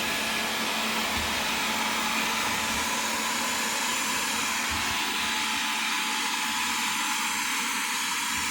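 Wyze robot vacuum running a cleaning pass at standard suction: a steady whir of its suction fan with a faint low hum underneath.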